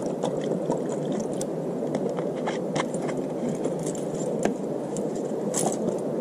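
Water poured from a plastic bottle into a collapsible silicone pot, with crackles and clicks from handling the bottle and camp gear, over a steady low rushing noise.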